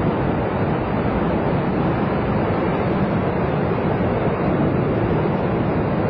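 Water rushing steadily, an even, unbroken rush.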